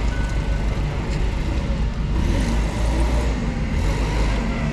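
Forklift engine running steadily, its reversing alarm giving one beep near the start.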